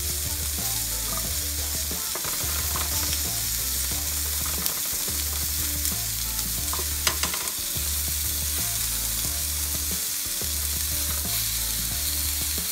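Chicken pieces sizzling on a hot grill: a steady crackling sizzle, with a few small clicks about seven seconds in.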